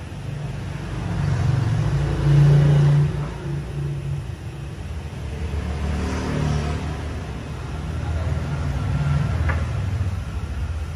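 A low motor hum that swells and fades, rising in speed and dropping back, loudest about two seconds in.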